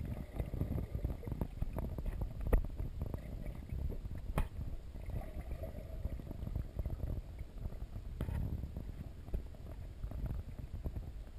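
Muffled low rumbling and sloshing of sea water against a GoPro HD Hero 2 in its waterproof housing held under the surface, with scattered knocks; the sharpest come about two and a half and four and a half seconds in.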